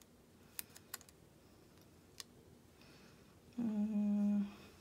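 A few light, separate clicks and taps from sticker sheets and paper being handled, then about three and a half seconds in a short, steady hummed "mm" of a woman's voice, the loudest sound here.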